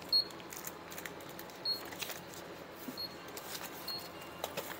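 Short high electronic beeps from a convenience-store checkout register, four of them about a second apart, the first two loudest, amid light clicks and rustling at the counter.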